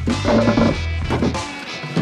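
Background music with guitar over a steady bass line.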